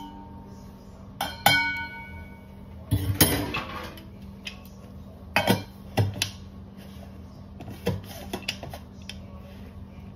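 A metal spoon clinks against a stainless steel tumbler while stirring a drink, with two ringing clinks about a second and a half in. These are followed by scattered clicks and knocks as a clear plastic slider lid is fitted onto the tumbler.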